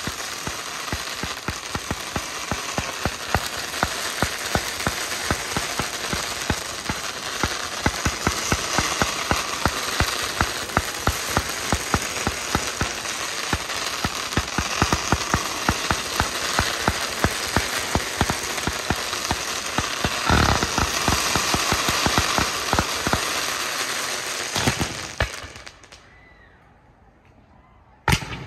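Fireworks barrage fired from directly overhead: a rapid, continuous run of sharp launch pops and crackling, many shots a second, that stops abruptly about 26 seconds in. A single loud bang comes near the end.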